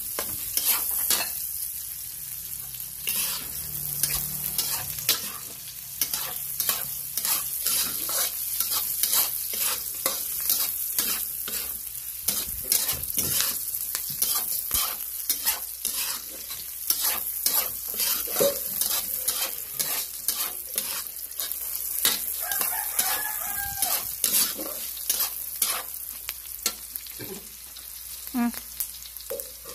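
A sauté sizzling in a frying pan while a utensil stirs it, with many quick scrapes and taps against the pan throughout.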